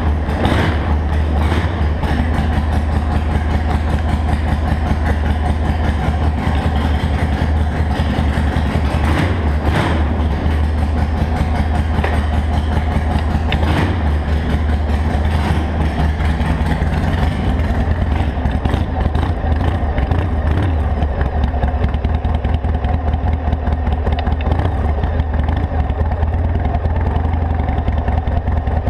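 Harley-Davidson Sportster XL883's 883 cc V-twin engine running steadily, with a regular low firing beat throughout.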